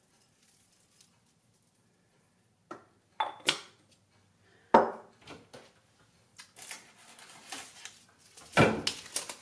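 Kitchen handling clatter: after a near-silent couple of seconds, a string of sharp knocks as a small ceramic cup and containers are set down on the counter, then a cupboard door is opened and things inside are rummaged, with one more loud knock near the end.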